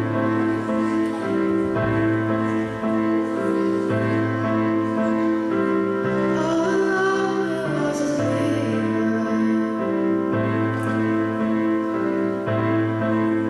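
Slow piano music with sustained chords changing every second or two. A girl's voice sings along into a microphone, heard most clearly from about six seconds in.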